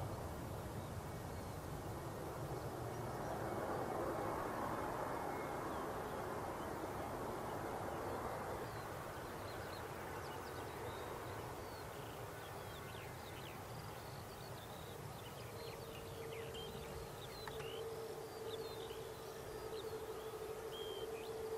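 Summer outdoor ambience: birds chirping in short high calls, and from about two-thirds of the way in an insect buzzing steadily close by, over a low rushing background that swells early on and then fades.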